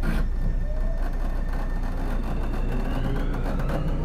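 Tobu 30000 series electric train accelerating, heard from inside a motor car: the traction motors' whine rises steadily in pitch over the rumble of the wheels on the rails.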